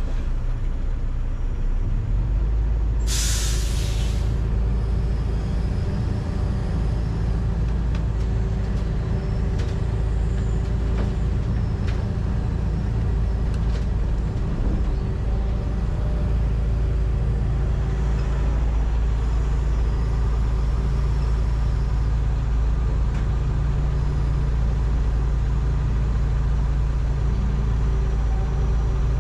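John Deere 245G excavator's diesel engine and hydraulics running steadily, heard from inside the cab, the low rumble growing heavier about two seconds in as it takes load. A short burst of air hiss about three seconds in.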